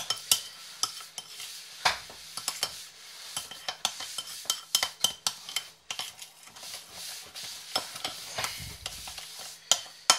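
Metal spoon stirring a thin, runny paste of cornflour, sugar and water in a ceramic bowl, with irregular clinks and scrapes of the spoon against the bowl.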